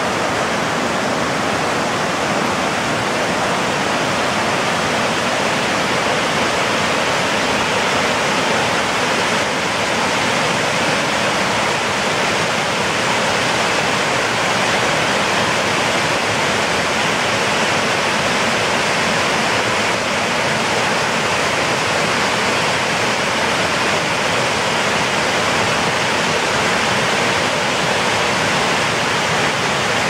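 Waterfall pouring steadily: an even, unbroken rush of falling water.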